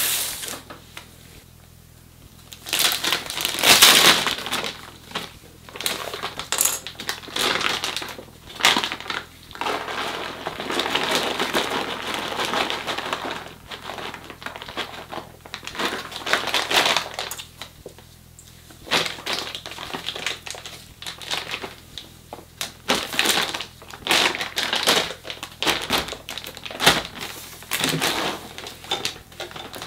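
Plastic bags crinkling and rustling as wheat grain spawn is poured and shaken between them, the grains rattling against the plastic in irregular spells with short lulls, once about a second in and again near the middle.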